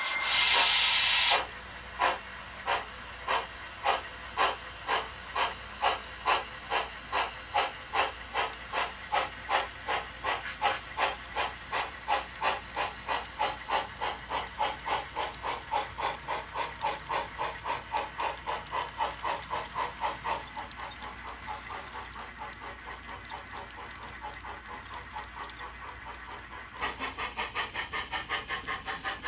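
Sound-equipped HO scale model steam locomotive: a burst of steam hiss, then exhaust chuffs that start slow and quicken steadily as it pulls away. The chuffs grow softer after about twenty seconds and louder again near the end.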